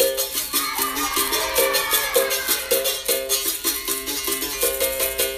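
Capoeira roda music: a berimbau twanging in a repeating pattern of two or three notes over steady percussion and handclaps.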